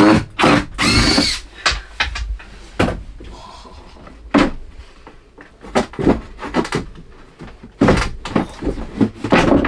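Pine cupboard boards being pulled and worked apart by hand: a run of wooden knocks and clunks, with a squeaking creak about a second in.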